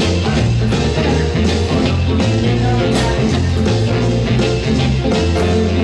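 Rock music with a steady beat and a bass line stepping from note to note.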